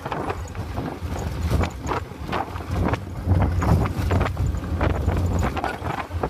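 A vehicle driving slowly over a rough dirt road: a steady low rumble with irregular knocking and rattling on top.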